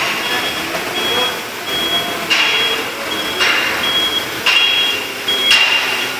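Hammer blows on metal, four or five strikes about a second apart, each ringing briefly, with a high electronic beep sounding on and off between them.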